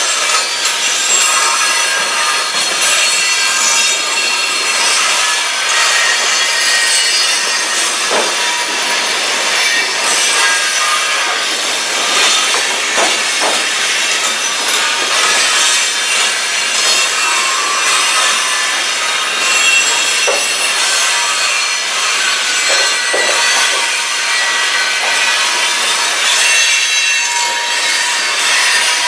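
Cars of a passing CN train rolling by, with steel wheels screeching and rubbing on the rails and a few clunks about 8, 13 and 20 seconds in.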